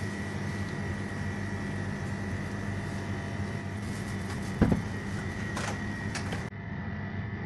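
Steady low machine hum with a thin high whine over it. A single thump comes about four and a half seconds in, followed by a few light clicks.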